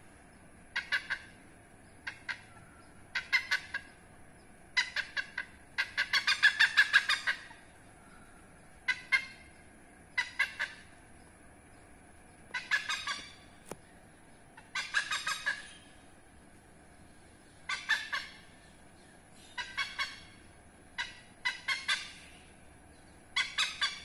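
Oriental pied hornbill calling in about a dozen short bursts of rapid repeated notes, spaced a second or two apart. The longest and loudest burst comes about six seconds in.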